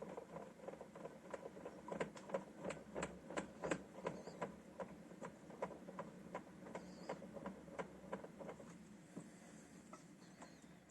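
A train of light mechanical clicks, about two to three a second, thinning out and fading after about nine seconds, over a steady low hum.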